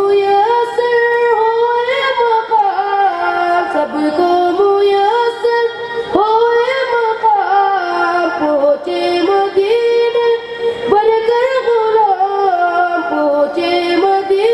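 A boy singing an Urdu naat solo into a microphone, a single melodic voice with no instruments. It runs in three long held phrases, the second and third starting with a sharp rise in pitch about six and eleven seconds in.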